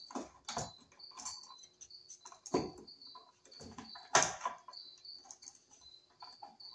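Clicks, knocks and rustles of stiff insulated copper wires and a wall switch being handled and folded back into a plastic electrical box, with the loudest knocks about half a second, two and a half, and four seconds in. Behind them a cricket chirps steadily, about twice a second.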